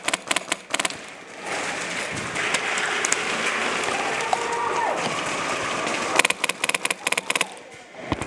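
Airsoft rifle firing rapid full-auto bursts: one burst ends about a second in, and another runs for about a second and a half from about six seconds in. Between the bursts there is a steady, busy background hubbub.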